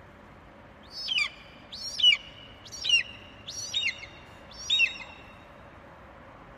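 A bird calling five times, about once a second, each call a short note that slides downward in pitch.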